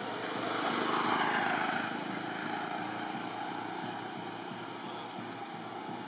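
A vehicle passing along the road: a rushing noise that swells to a peak about a second in and fades away, over a steady outdoor background.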